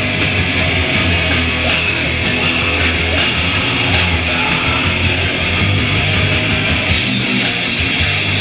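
Live heavy rock band playing loud: distorted electric guitars, bass and drums with steady cymbal hits, and a cymbal wash opening up near the end.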